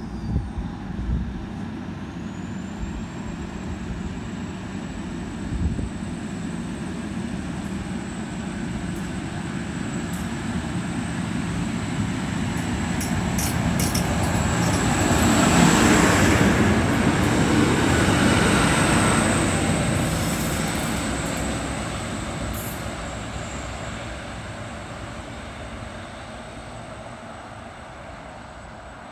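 Endeavour diesel railcar set pulling out and passing close by, its engines growing louder to a peak about halfway through, then fading as it draws away, with a thin high whine throughout. Wind buffets the microphone at the start.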